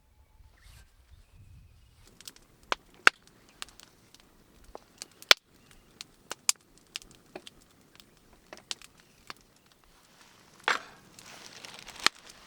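Wood campfire crackling, with irregular sharp pops and snaps over a faint hiss, starting about two seconds in; a louder rustling hiss comes near the end.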